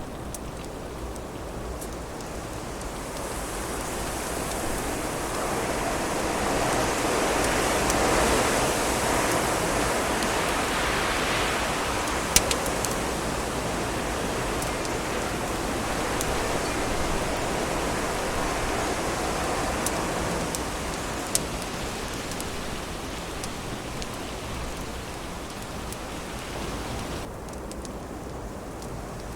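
Wind rushing in a long gust that builds over the first several seconds and eases off after about twenty seconds, over a wood fire that gives a few sharp crackling pops.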